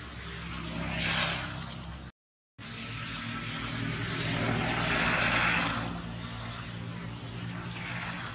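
A motor vehicle's engine running under a steady low hum, its noise swelling and fading twice as if passing, with a brief cut to silence about two seconds in.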